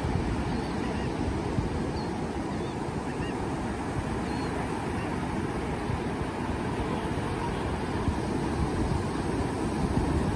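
Ocean surf breaking and washing up the beach: a steady rush of waves. A few faint, short bird calls come through over it in the first half.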